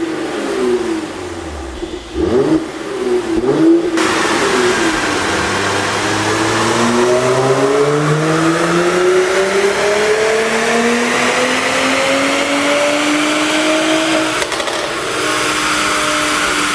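Mercedes-AMG GLC43's twin-turbo V6 engine revved in a few quick blips, then, about four seconds in, pulling under a long steady acceleration, its pitch climbing slowly for about ten seconds before levelling off, with a rushing hiss over it.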